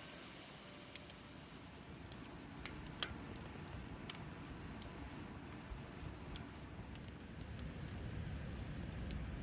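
Wood campfire crackling: irregular sharp pops and snaps over a low rumble, with the loudest pop about three seconds in.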